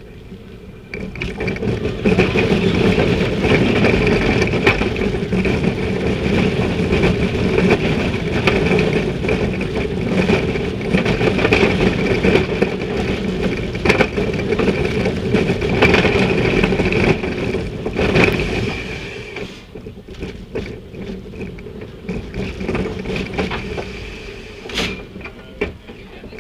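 Family roller coaster train running on its steel track, a loud steady rumble with a whine from the wheels. About twenty seconds in it drops away as the train slows into the station, with a few sharp knocks near the end.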